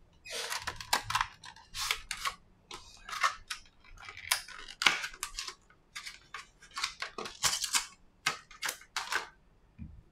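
Plastic packaging crinkling and rustling in irregular bursts, with a few sharper crackles, as a replacement iPhone XS display is unwrapped by hand.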